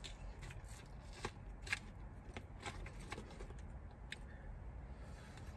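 A metal fork cutting into the crisp baked crust of a chicken pot pie on a paper plate: faint scattered clicks and crackles.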